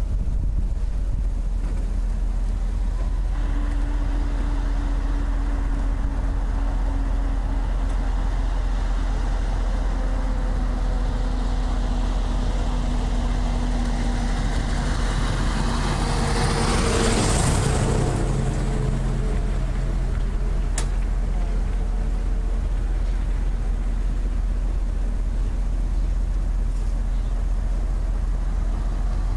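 A car driving, heard from a camera mounted outside on the hood: a steady low rumble of road and wind. A little past halfway, a passing vehicle swells up and fades over a couple of seconds, its pitch dropping as it goes by.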